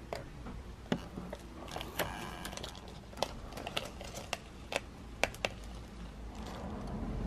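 Vinyl decal being weeded with a hook-tipped weeding pick, the waste vinyl peeled off the backing by hand: scattered sharp clicks and ticks, with a brief crackle about two seconds in.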